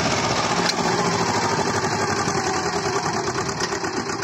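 Swaraj 724 XM tractor's two-cylinder diesel engine working hard under heavy load, hauling a fully loaded trolley, its pitch slowly falling as it lugs down.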